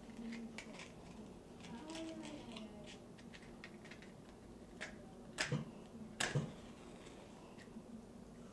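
Small clicks and taps of a paper matchbook being handled, then a paper match struck twice on the matchbook's striker, about a second apart; the second strike lights it.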